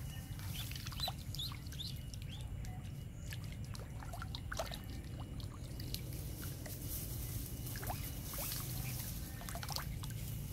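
Short, scattered chirps and small trickling water sounds from a tethered duckling paddling on a still pond, over a low steady rumble.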